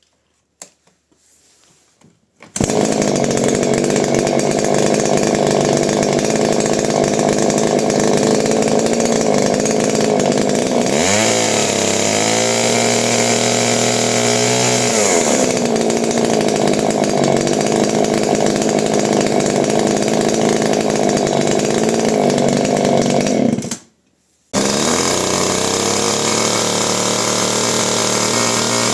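Husqvarna 333 two-stroke chainsaw engine being test-run. It starts a couple of seconds in and runs steadily. About halfway through it is revved up for several seconds and drops back. Near the end the sound cuts out for about a second and the engine runs again.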